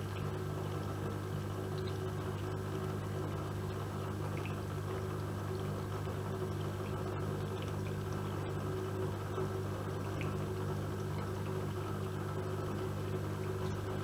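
AEG Öko-Lavamat Lavalogic 1600 washing machine running mid-cycle: a steady hum, with water running and sloshing inside the machine and a few faint knocks.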